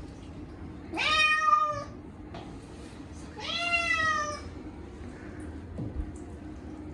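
A short-legged Munchkin cat gives two long, loud meows about two seconds apart, each rising at the start and then held. These are distressed cries of a cat protesting being bathed.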